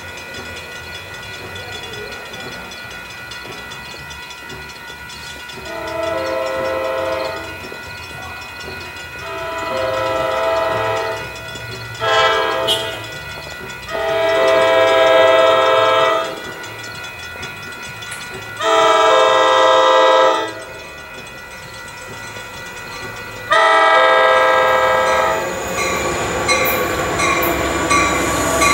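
Locomotive air horn sounding a multi-note chord as the train approaches: long, long, short, long (the grade-crossing signal), then two more long blasts. Near the end the train's wheels rumble and click over the rails as it comes into the station.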